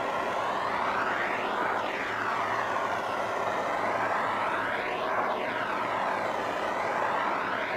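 Bernzomatic propane torch on a 1-pound bottle burning with a steady hiss, its tone shifting in slow sweeps as the torch is moved about.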